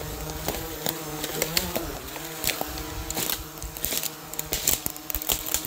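A small camera drone's propellers buzzing steadily, a hum at one held pitch with a brief wobble about a second and a half in. Scattered sharp clicks and crackles sound over it.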